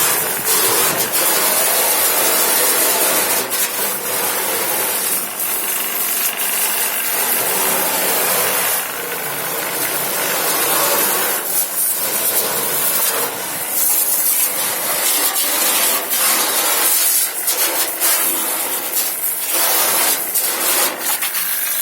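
Continuous, uneven scrubbing and scraping while dirty, rusted washing-machine parts are cleaned.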